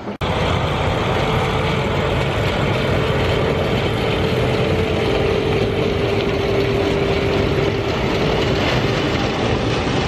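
John Deere sugarcane harvester running steadily while its elevator loads chopped cane into a wagon pulled alongside, with a steady machine rumble. A steady tone sounds over it through the middle of the stretch.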